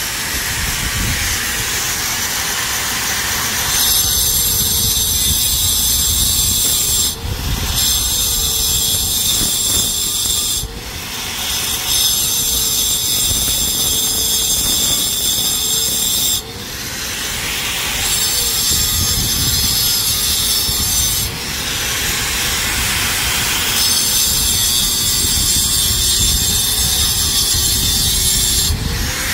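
Corded angle grinder running with its disc grinding against an overhead ceiling surface, a steady, loud grinding whine. The level dips briefly four times, around seven, eleven, sixteen and twenty-one seconds in.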